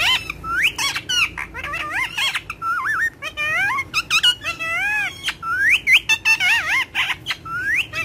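Indian ringneck parakeet chattering: a rapid, unbroken run of short whistled chirps and squawks that swoop up and down in pitch, with sharp clicks mixed in.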